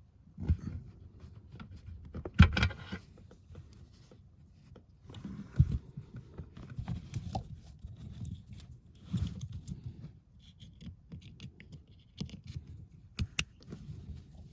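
Handling noise from wiring work: scattered clicks, light knocks and scraping as cables and plastic connectors are handled and plugged in, with one sharp click about two and a half seconds in.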